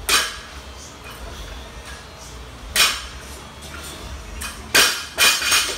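Loaded barbell with bumper plates clanking: a sharp metallic clank as it leaves the floor, another about three seconds in, then three clanks in quick succession near the end as the bar comes back down to the mat.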